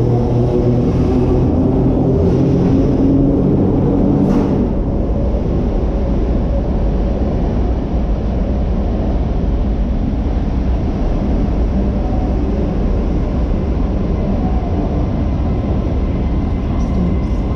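Vintage 1927-built Sydney 'red rattler' single-deck electric train running through an underground station: a loud, steady rumble of wheels and motors, with a humming tone over it for the first four seconds or so and a sharp knock about four seconds in.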